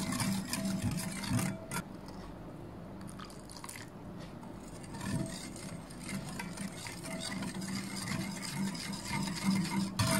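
Metal wire whisk beating milk in a glass bowl: quick, rhythmic scraping and swishing of the wires against the glass. It eases off between about two and six seconds in, then picks up again.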